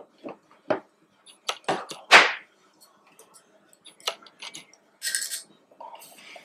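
Clicks and knocks from a plastic blender cup being unscrewed from its blade base and handled, the loudest a single clunk about two seconds in. Near the end a wooden spatula scrapes briefly inside the upturned cup as thick sauce is worked out.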